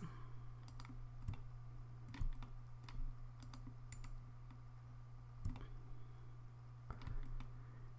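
Faint, irregular clicks of a computer mouse as objects are selected, over a steady low hum.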